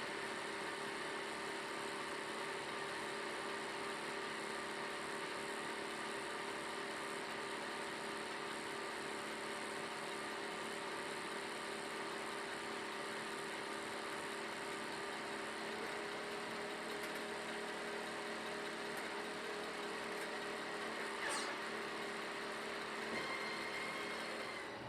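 Tractor engine running steadily while pulling the John Deere 567 round baler through the hay, with one short sharp knock near the end.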